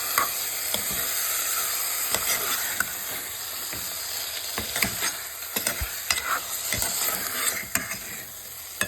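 Chicken pieces frying in hot ghee and oil with onions and spices: a steady sizzle, with scattered knocks and scrapes of a spoon stirring in the pot.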